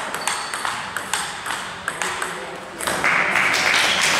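Table tennis ball clicking off paddles and the table in a quick, uneven rally. About three seconds in, a louder rush of crowd noise takes over.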